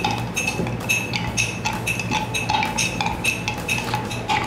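A stirrer clinking rhythmically against the inside of a drinking glass, about four strikes a second, each with a short glassy ring, as jaggery, rock sugar and water are stirred into a muddled drink.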